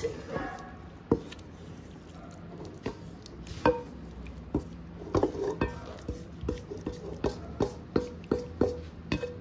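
A spoon knocking and scraping against a cooking pan as kofta curry is scraped out of it onto rice: scattered sharp clinks with a short ring, then a quicker run of about three clinks a second in the second half.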